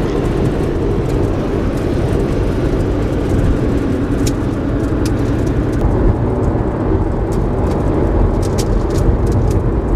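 Steady road and wind noise inside a car's cabin while driving at speed, a dense low rumble, with a few faint ticks in the second half.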